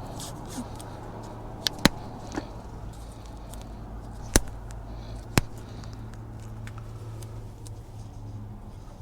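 Sharp clicks and taps from hands working on taped wiring, about five in the first half and two of them the loudest, over a steady low hum.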